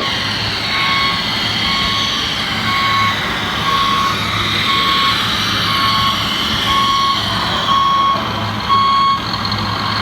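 Reversing warning beeper of a model construction truck, beeping at one steady pitch about once a second, over the steady whine of the machine running.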